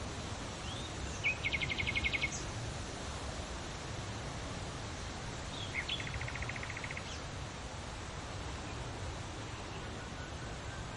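Leaves rustling steadily in the wind, with a songbird singing twice: each phrase is a short upward note followed by a fast, even trill of about a dozen notes a second.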